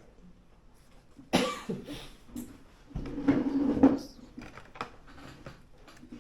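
A person coughing about a second in, then a longer, louder voice sound around three seconds in.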